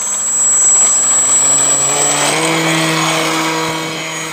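Small electric RC plane motor, an Exceed RC 300 Alpha spinning a 7x5 APC propeller, running hard for takeoff and climb-out: a steady high whine over a buzzing prop note. The pitch steps up about two seconds in, and the sound slowly fades toward the end as the plane climbs away.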